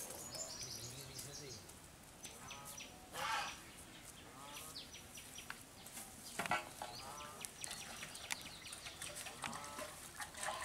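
Faint bird calls, chickens clucking among them, with a few short, high chirps coming and going.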